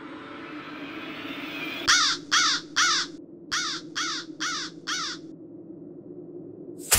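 A crow cawing: seven harsh caws about half a second apart, three then a short pause then four, over a steady low drone.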